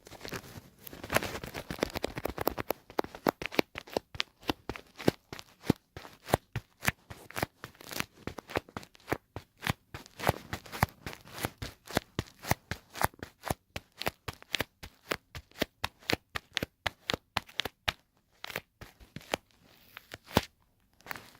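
Close-up ASMR tapping: many quick, sharp taps at an uneven pace of a few each second, after a denser crackling stretch in the first two seconds. The taps thin out into a short lull near the end, then a few more follow.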